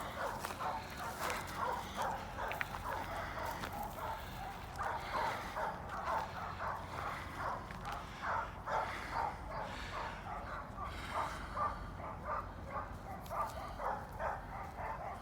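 Dogs barking nonstop in rapid, overlapping barks, agitated at being left behind.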